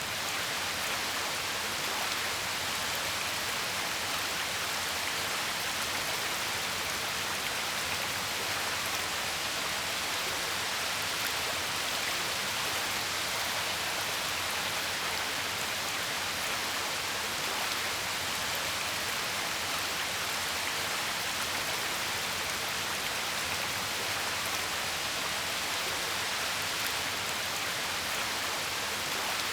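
A steady, even rush of water that begins abruptly.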